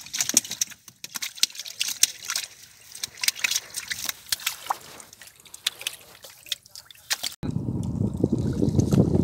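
Water dripping and trickling off a wet fishing net as it is hauled up and handled, a quick irregular patter of drips and small splashes. About seven seconds in the sound cuts abruptly to a low steady rumble.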